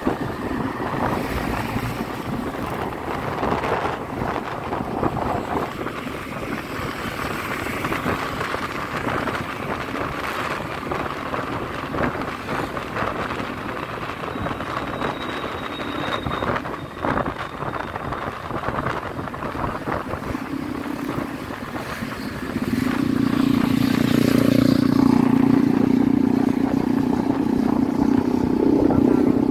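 Riding on a motorbike in traffic: the engine runs under wind rushing over the microphone. About two-thirds of the way through, a louder, lower steady engine sound comes in and holds.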